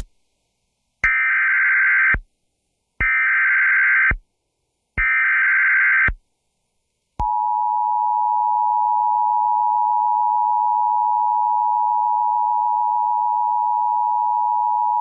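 Emergency Alert System activation: three short bursts of the SAME digital header, each about a second long and a second apart, then, about seven seconds in, the steady two-tone EAS attention signal (853 and 960 Hz) starts, announcing a severe thunderstorm warning.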